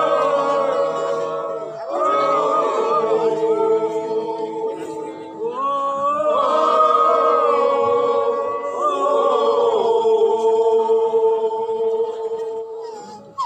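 A group of Kimyal men singing a traditional welcome song together without instruments, several voices holding long notes. The song comes in phrases of a few seconds, with new phrases entering about every three or four seconds, and it dies away near the end.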